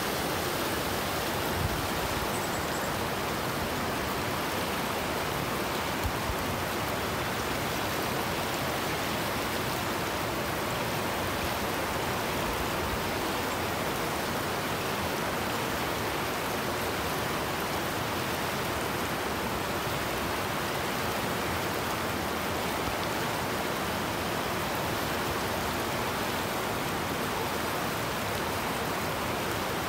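River rapids rushing: fast water running over rock in a steady, unbroken wash of noise.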